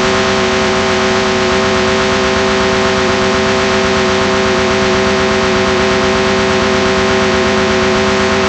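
Analogue television static: a loud, steady hiss with a buzzing hum under it, cutting in abruptly from silence.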